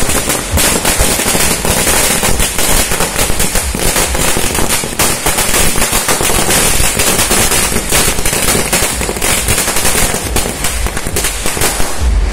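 A 5000-wala ladi, a long string of small firecrackers, going off in a dense, rapid rattle of bangs too fast to count.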